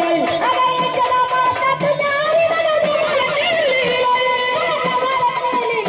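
Live Marathi devotional folk music, a gaulan: a woman singing over a steady drum beat, with a wavering sustained melodic line.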